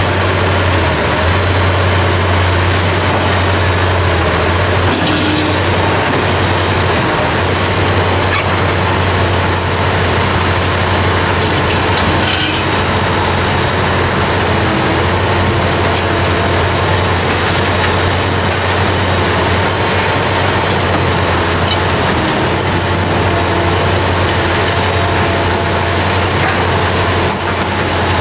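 Liebherr R 960 Demolition crawler excavator's diesel engine running steadily under load, with a strong deep drone, as the hydraulics work the boom and bucket in the soil. A few light knocks and scrapes from the bucket come through.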